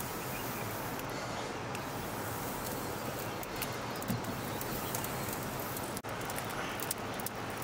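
Steady outdoor background noise, an even hiss, with a few faint scattered clicks.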